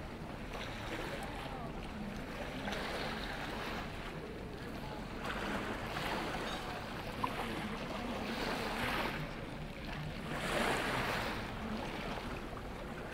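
Small sea waves washing against a rocky shore, swelling and ebbing every two to three seconds. A single sharp click about seven seconds in.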